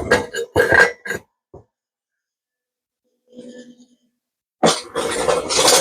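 Welder arc crackling in short bursts as the lower door skin is tack-welded: a few quick tacks in the first second, then one longer tack of about a second near the end.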